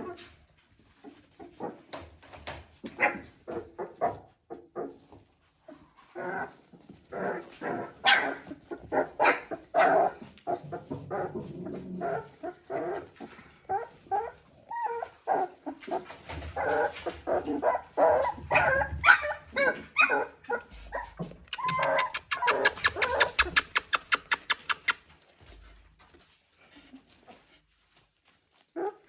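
Three-week-old Border Collie puppies whimpering, whining and yelping in many short, high cries. About two-thirds of the way in there is a quick, even run of repeated short cries.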